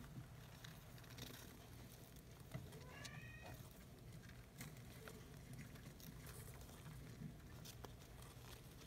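Faint rustling and light clicks of shredded-paper bedding as African soft-furred rats shift in their nest, with one short call with a wavering pitch about three seconds in.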